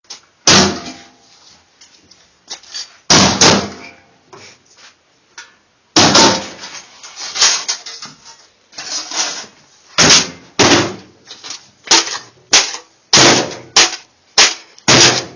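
Metal frying pan struck against hard surfaces for foley: a series of loud clanging hits at uneven intervals, each with a short ring.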